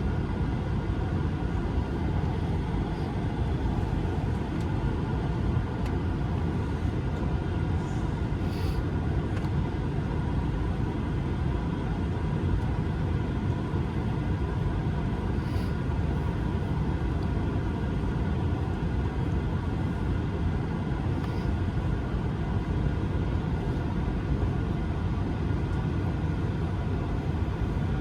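Steady cabin noise inside an Airbus A220-300 on the ground: a low rumble with a steady whine from its Pratt & Whitney PW1500G geared turbofan engines, as the jet taxis. A few faint ticks are heard now and then.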